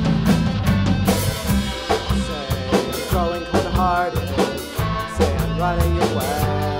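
Live rock band playing: drum kit with bass drum, bass and electric guitar and keyboard, with a lead line sliding up and down in pitch through the middle.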